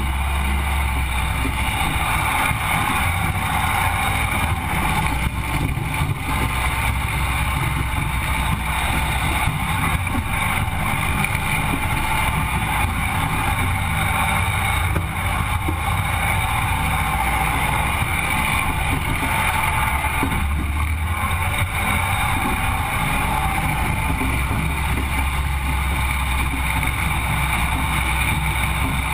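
Sandrail engine running steadily under way, heard from onboard the open buggy.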